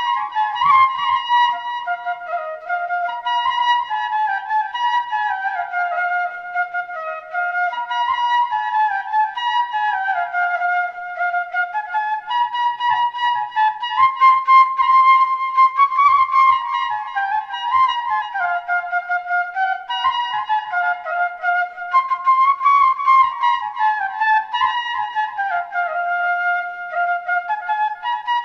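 Background music: a solo flute playing a slow, winding melody.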